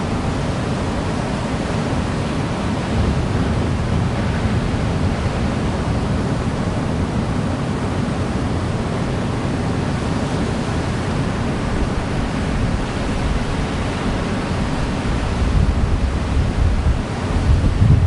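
Ocean surf breaking and washing onto a sand beach: a continuous wash of noise, heaviest in the low end, that swells louder near the end.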